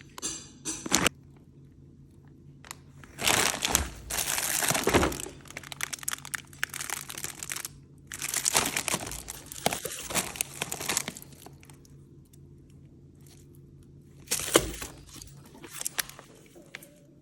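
Plastic packaging crinkling and tearing in several bursts, each lasting one to three seconds, with quieter gaps between them.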